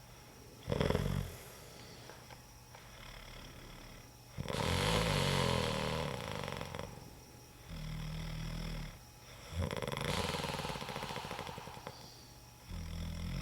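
A man snoring in a series of separate snores, each half a second to two seconds long, with short pauses between them. Long breathy snores alternate with low, steady rumbling ones.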